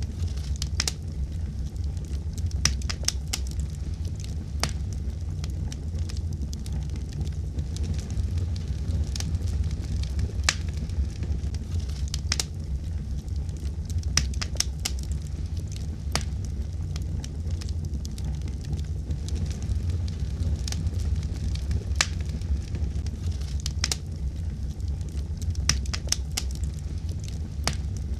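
Wood fire burning in a fireplace: a steady low rumble of flame with sharp crackles and pops at irregular intervals.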